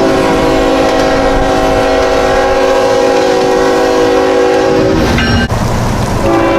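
Nathan Airchime K5HL five-chime air horn on a freight locomotive, sounding a steady chord in one long blast of about five seconds, then sounding again near the end.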